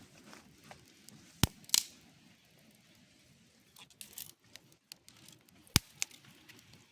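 A few sharp clicks or snaps over a faint background: two about a second and a half in, a short run of softer crackling a little past the middle, and one more loud click near the end.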